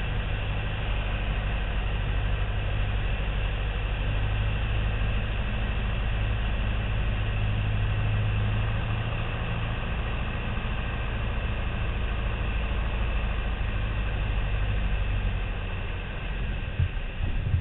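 Piper Cherokee's piston engine and propeller running at a steady drone, with some uneven low thumps near the end.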